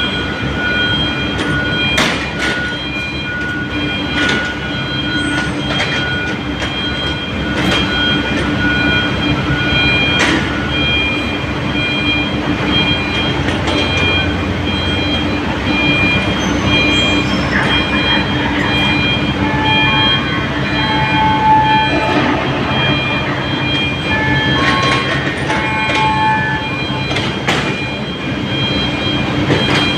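Small crawler excavator travelling up a slope, its diesel engine running steadily under load while the steel tracks clank and knock. Intermittent high squeals and whines come from the undercarriage and hydraulics, more broken up in the second half.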